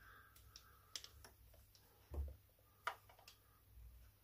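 Near silence with scattered faint clicks and light taps of small parts and tools being handled while a model car's exhaust is fitted, with a soft knock about two seconds in and a sharper click just after.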